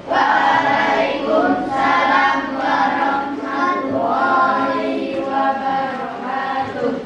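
A group of children singing or chanting together in unison.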